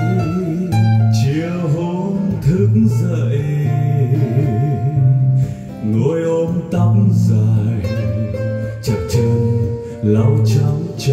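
Recorded music with prominent guitar: a Vietnamese song played back from a MiniDisc on a Sony MXD-D1 deck.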